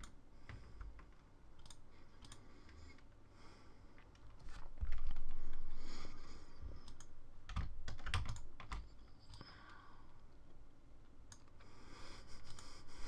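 Computer keyboard keys and mouse buttons clicking and tapping irregularly. About five seconds in there is a louder stretch of noise lasting a second or two.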